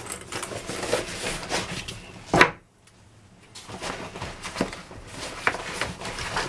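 Handling noise from a lockpick tool bag being closed up and turned over: rustling and small clicks and knocks, with one louder knock about two and a half seconds in and a short hush after it.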